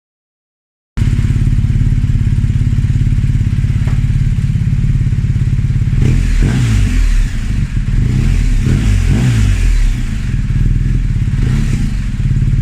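BMW R1250GS Adventure's boxer-twin engine running, cutting in suddenly about a second in, with several quick throttle blips that rise and fall in pitch in the middle.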